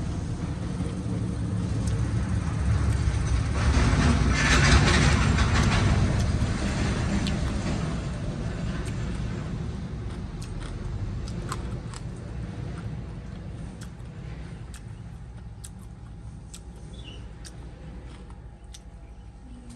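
A motor vehicle passing by, its rushing sound building to a peak about five seconds in and then slowly fading away. A few light clicks follow in the second half.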